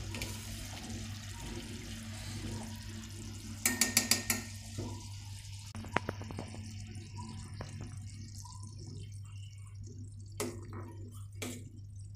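Steel ladle stirring a thick, simmering mixture in a steel cooking pot: a quick run of scrapes against the pot about four seconds in and a few single sharp clinks later, over a steady low hum.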